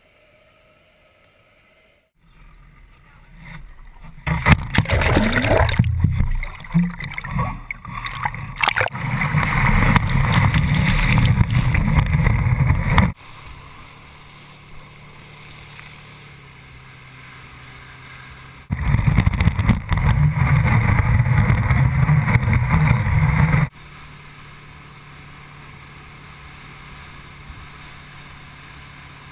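Water rushing and spraying as a skier is towed behind a ski boat, loud in two long stretches that start and stop abruptly. Between them, a steadier, quieter drone from the boat's engine.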